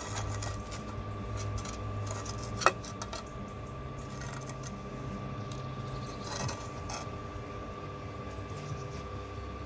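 Trowel scraping and tapping on a wet cement bed while spreading mortar for paving slabs, with one sharp clink nearly three seconds in and a lighter scrape a few seconds later. A steady low hum runs underneath.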